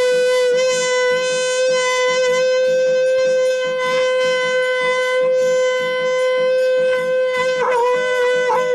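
Conch shell (shankh) blown by a boy: one long, steady note held at a single pitch, with a brief waver near the end.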